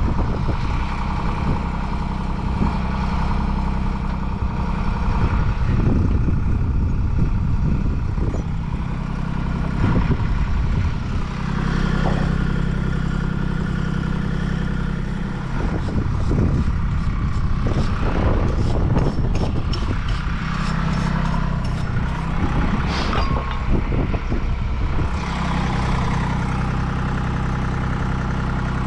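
Truck engine idling steadily with a low hum, with wind buffeting the microphone. A few light metallic clicks of pipe fittings being handled come about two-thirds of the way through.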